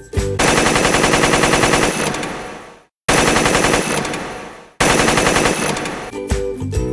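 Three long bursts of rapid machine-gun fire, each trailing off, with cheerful background music just before and after.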